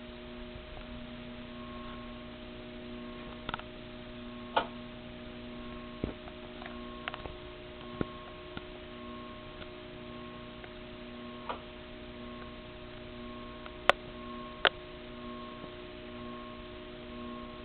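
Baseball ceiling fan's motor running on a variable speed wall control: a steady electrical hum with a fainter tone that pulses on and off a little over once a second, and scattered sharp ticks and clicks, two of the loudest close together near the end.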